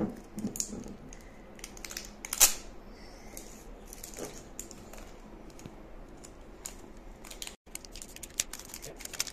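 Short clicks, scrapes and knocks of a small jar of coffee body scrub being handled and twisted at its lid, with one sharper knock about two and a half seconds in.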